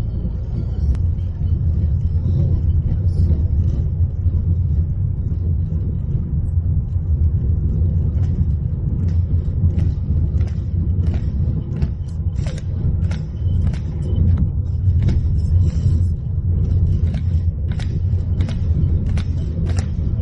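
Steady low road rumble inside a car's cabin. From about eight seconds in, a run of short sharp ticks sounds over it, roughly one or two a second.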